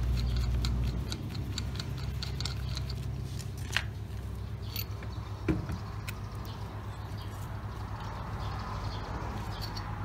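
Light metallic clicking and ticking as a motorcycle's spoked rear wheel is worked off its drum-brake hub, with two sharper knocks about four and five and a half seconds in.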